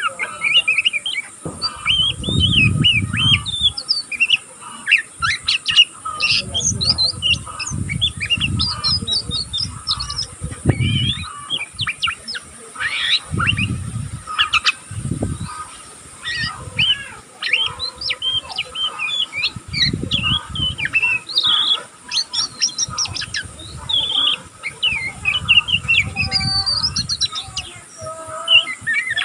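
Young oriental magpie-robin (kacer) twittering without pause: a fast, unbroken run of short chirps, squeaks and scratchy notes. This is the rambling 'ngeriwik' chatter of a juvenile still learning its song. Dull low thumps come every few seconds.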